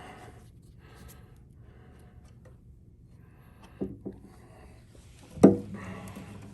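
Light rubbing and handling sounds as wood glue is worked into a cracked guitar headstock. There are a couple of small knocks about four seconds in and a sharper knock about five and a half seconds in.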